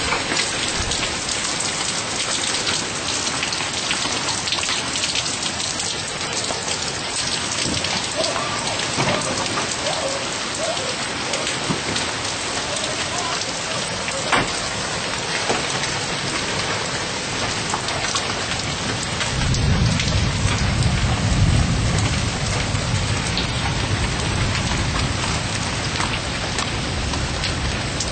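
Heavy rain pouring down steadily, with scattered sharp ticks of drops striking nearby. About two-thirds of the way through, a long low rumble of thunder sets in and keeps going.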